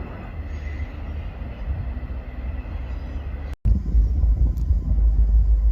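Freight train cars rolling past over the rails, a steady rumbling wheel noise. About three and a half seconds in it cuts off abruptly and gives way to a louder, deeper steady rumble.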